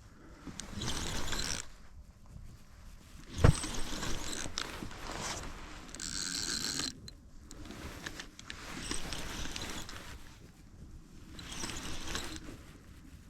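Fishing reel being wound in short bursts of about a second while a hooked barbel is played, with a sharp click about three and a half seconds in.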